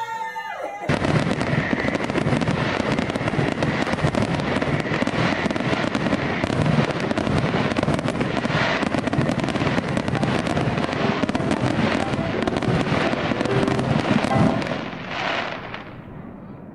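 Fireworks going off in a dense, continuous crackling barrage that starts about a second in and dies away near the end.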